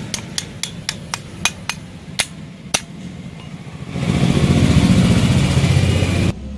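A run of sharp taps or knocks, about four a second at first and then spacing out, stopping about three seconds in. About four seconds in a motorcycle engine starts running steadily, then cuts off abruptly near the end.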